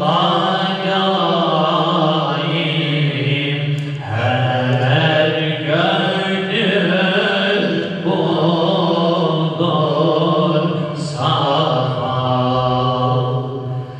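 A group of men chanting a Turkish ilahi (Islamic hymn) unaccompanied into microphones, a melismatic melody in long phrases over a steady low held note.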